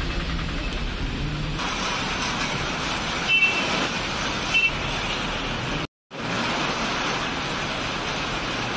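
Steady outdoor background noise, with two short high beeps about a second apart near the middle and a brief gap of silence soon after.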